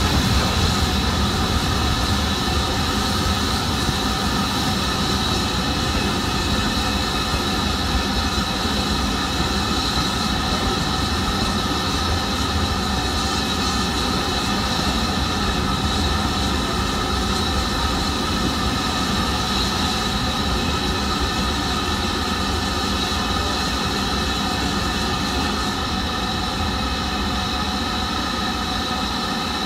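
Steam train pulling out of the station, its coaches rolling past on the rails: a steady rumble and hiss that hardly fades as the train draws away.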